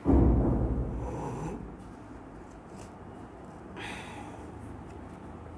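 A heavy breath close to the microphone starts suddenly and loudly, then fades over about a second and a half. A shorter, fainter breath follows about four seconds in.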